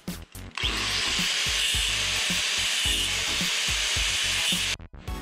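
Angle grinder grinding down a steel tie rod end: after a few short clicks, a steady high-pitched grinding starts about half a second in and cuts off suddenly near the end.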